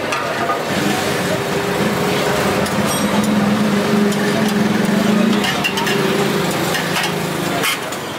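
A motor vehicle's engine running close by, a steady low hum that drops slightly in pitch about two-thirds of the way through and fades near the end.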